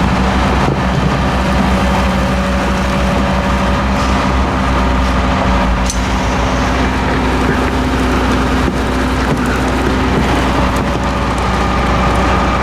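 Volumetric concrete mixer truck running, its engine held up at working revs to drive the auger, a steady loud drone with a low pulsing hum and a few faint clicks.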